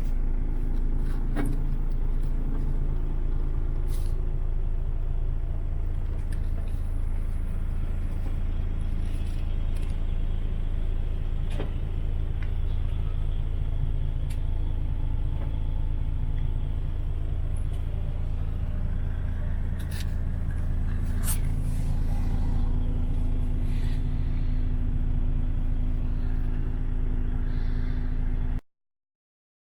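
DAF XF105's Paccar MX 460 straight-six diesel engine idling steadily, with a few sharp clicks over it; the sound cuts off abruptly near the end.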